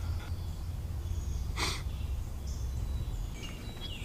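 A person's short, sharp exhale about halfway through, over a steady low rumble outdoors, with a few faint bird chirps near the end.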